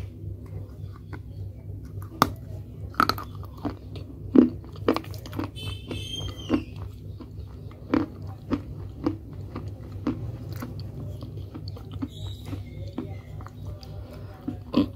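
A person biting into and chewing pieces of a fired clay pot at close range, with sharp dry crunches every second or so over a steady low hum.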